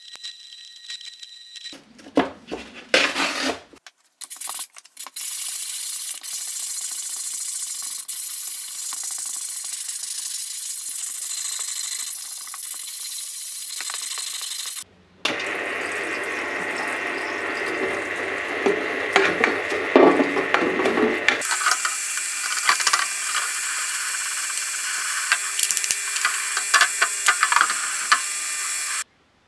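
Workshop sounds in a few cut-together segments. The hiss of a sandblasting gun in a blast cabinet comes first. Then there is a humming parts-washer pump with solvent splashing over a metal shaft, with small metal clicks as the part is handled.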